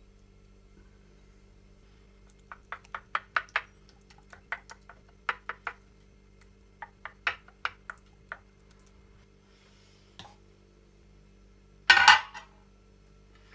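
Kitchen utensils clinking and knocking against dishes in several quick runs of taps, then one louder clatter near the end.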